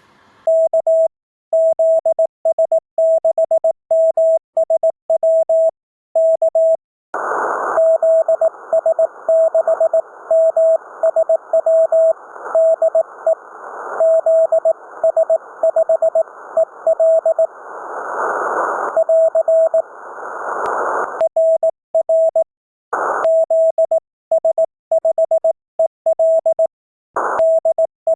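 Morse code (CW) from an amateur radio transceiver: a single mid-pitched tone keyed in dots and dashes. From about seven seconds to about twenty-one seconds the keying sits in a band of receiver hiss that swells around eighteen seconds. Before and after that stretch it sounds clean, with silent gaps between the elements.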